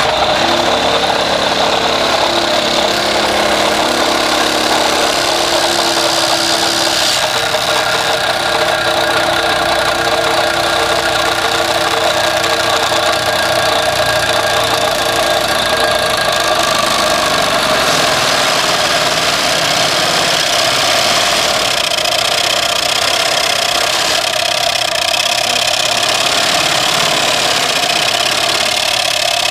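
Autoguide Mini-Postmaster, a twin-shaft hydraulic vibrating post driver on a mini excavator, running steadily and loudly as it vibrates a steel solar-panel foundation post into the ground, over the excavator's engine working under hydraulic load.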